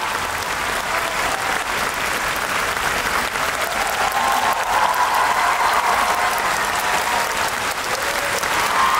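Large concert audience applauding, a dense steady clatter of many hands clapping.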